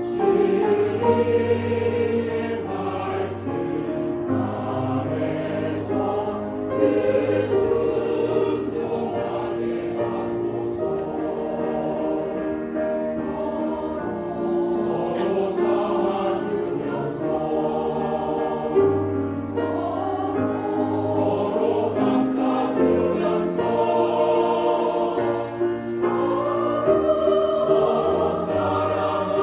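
Mixed choir singing a Korean sacred anthem in sustained phrases, accompanied by piano and a synthesizer playing a cello part in the bass.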